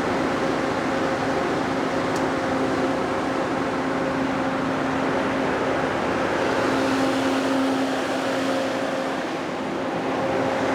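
Kohler 1000 kW industrial generator's MTU diesel engine running steadily under a load bank test, a constant loud drone with a steady hum through it.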